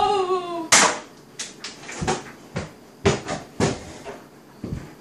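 A plastic water bottle, flipped across the room, lands on a wooden table with a sharp thud about three quarters of a second in. It is followed by several scattered lighter knocks.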